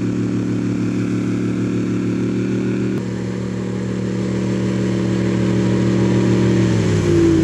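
Vehicle engines running hard under load as a chain of tow vehicles pulls a bogged airboat out of slippery mud. A steady engine note that grows louder over the last few seconds and shifts in pitch near the end.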